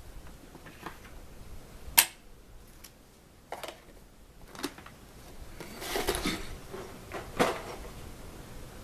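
Scattered sharp clicks and knocks of a Dremel rotary tool and its small parts being handled, the sharpest about two seconds in and a cluster a little past the middle; the motor is not running.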